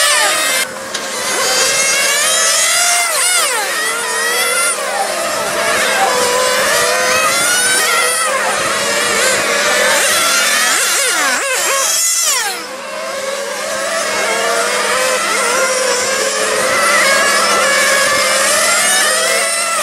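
Several 1/8-scale nitro RC buggies' small two-stroke glow engines running hard around a track. Many overlapping high-pitched engine notes glide up and down as the cars accelerate, brake and pass by.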